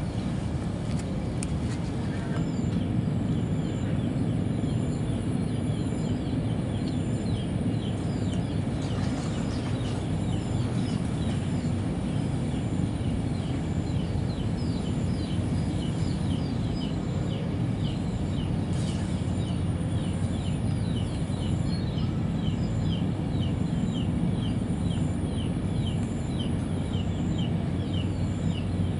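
Outdoor ambience at a pond bank: a steady low rumble, with short high chirps from a small animal repeating about twice a second from a few seconds in.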